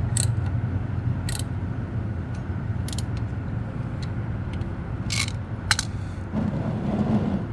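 A few sharp clicks and clinks of tools being worked on a car's oil filter housing while loosening it, over a steady low rumble.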